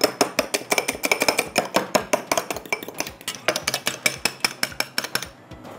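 An egg being beaten in a bowl: the utensil clinks quickly and evenly against the bowl, about seven strokes a second, and stops shortly before the end.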